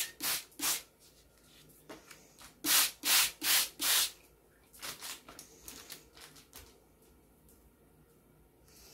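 Trigger spray bottle spritzing liquid onto paper in a baking tray: two short spritzes in the first second, then four in quick succession about three seconds in, followed by faint handling sounds.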